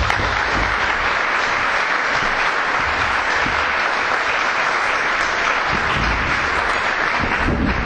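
Audience applauding steadily, dying away near the end, with a few low thumps underneath.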